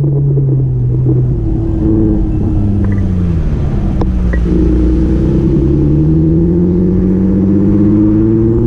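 A motor vehicle's engine running steadily, its pitch sliding down and back up a few times as it slows and speeds up, over a low rumble.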